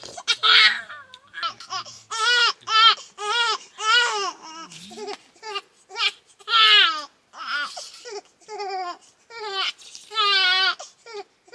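A young boy crying and fussing in short, high-pitched, wavering cries, about two a second, with brief pauses between runs.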